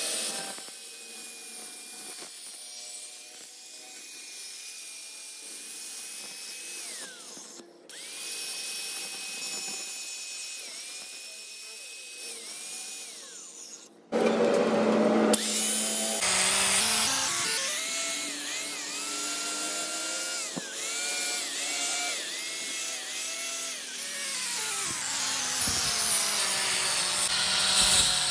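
Angle grinder with an abrasive disc running against the steel teeth of a spiral bevel pinion, polishing it: a motor whine that dips in pitch and recovers each time the disc is pressed onto the gear, over a hissing grind. The sound cuts out briefly twice, and is louder after the second break.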